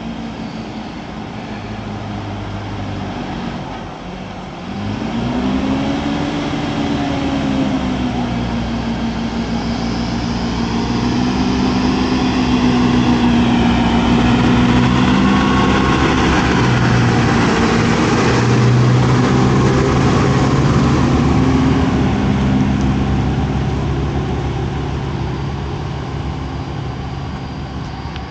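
City bus's diesel engine running as the bus comes up the road, passes close by and pulls away. The engine note rises and falls in pitch about five seconds in. It grows louder as the bus nears, is loudest through the middle as it goes by, and fades as it drives off.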